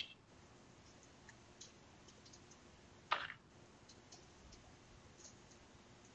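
Faint clicking of a computer keyboard picked up by a headset microphone: scattered light ticks, with a sharper click at the start and another about three seconds in.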